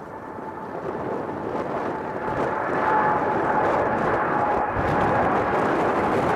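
Boeing 787 Dreamliner climbing out after takeoff, its twin GEnx turbofans at takeoff thrust: a jet roar that grows louder over the first three seconds, then holds steady, with a faint whine on top.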